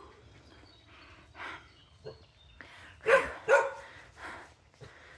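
Dog barking: two sharp barks in quick succession about three seconds in, with a few fainter short sounds before and after.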